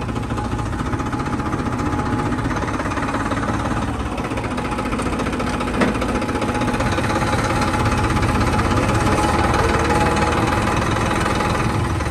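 Tractor engine running steadily with a trolley hitched on, with one sharp knock about six seconds in.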